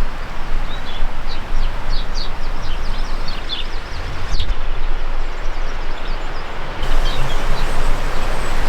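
Steady rushing noise from a mountain bike being ridden outdoors, with strings of short high bird chirps over it, two to four seconds in and again near seven seconds.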